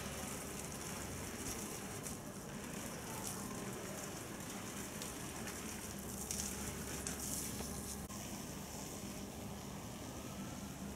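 Steady, faint hiss of outdoor background noise, with a faint whine that dips and rises again near the end.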